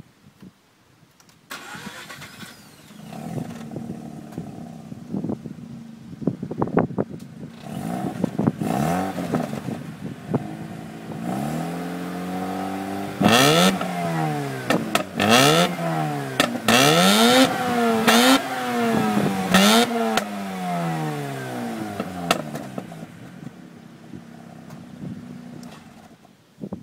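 Mazda RX-8's twin-rotor Wankel engine starting up and idling, then revved in a series of throttle blips, each rising and falling in pitch. Some blips come as a quick succession of short revs. It then drops back to idle and stops near the end.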